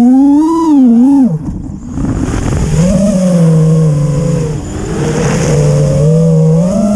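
The brushless motors and propellers of an FPV racing quadcopter (T-Motor F40 III 2600 Kv) whining, their pitch rising and falling with the throttle. About a second and a half in, the whine drops away into a rush of noise, then it picks up again and settles into a steady pitch.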